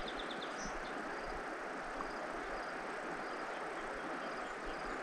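Quiet riverside outdoor ambience: a steady soft hiss, with faint short high chirps every second or so.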